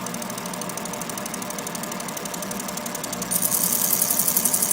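Laser separating machine burning through the back-glass adhesive of an iPhone 8 Plus: a fast, high-pitched pulsing buzz of about ten pulses a second that gets much louder about three seconds in, over a steady machine hum.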